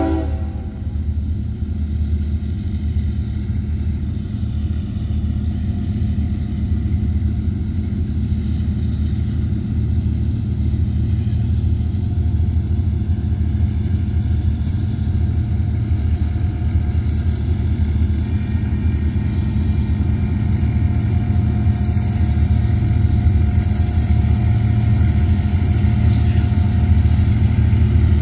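A low, steady engine rumble that slowly grows louder, right after a train horn cuts off at the start.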